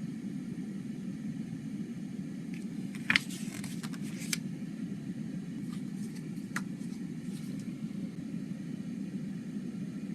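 Steady low background hum, broken by a few sharp plastic clicks and rustles about three to four and a half seconds in and once more about six and a half seconds in, as a CD case is handled.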